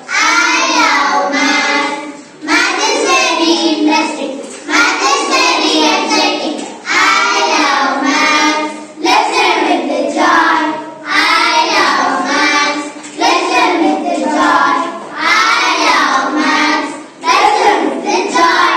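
A group of young schoolgirls singing together in unison, in short phrases of about two seconds each with brief breaks between them.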